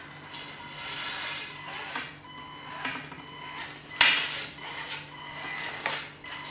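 Scale RC 6x6 crawler truck driving over loose wooden boards: the electric drive whines steadily with gear noise while the tyres and chassis knock and clatter on the planks, the loudest knock about four seconds in.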